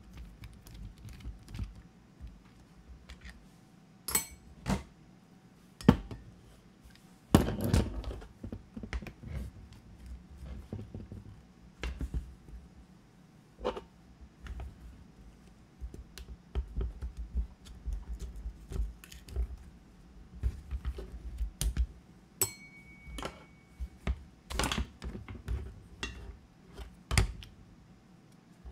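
Clicks, knocks and plastic rattles of an old cordless electric screwdriver's housing being pried and taken apart with a screwdriver, over low handling rumble. Irregular sharp knocks, the loudest about six and seven seconds in.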